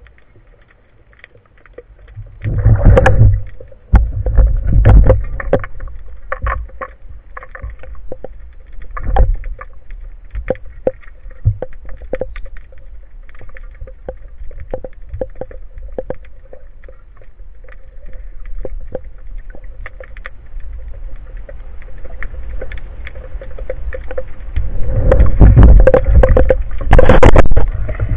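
Sea water churning and sloshing against an underwater camera housing just below the surface, with deep rumbling surges about three and five seconds in and again near the end. Many sharp clicks and knocks throughout as the speargun and gear are handled.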